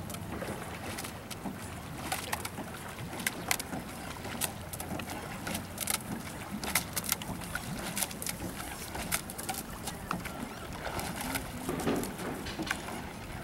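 Single racing scull being rowed at light pressure: oar blades in the water and scattered sharp clicks from the oars and rigging, over a steady outdoor hiss.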